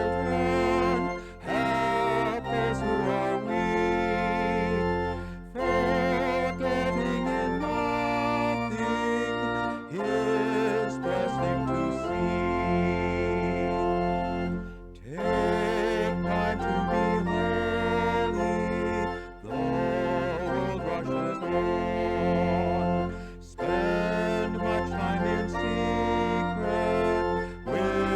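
Organ music: sustained chords over a held bass line, played in phrases with a brief break every four to five seconds.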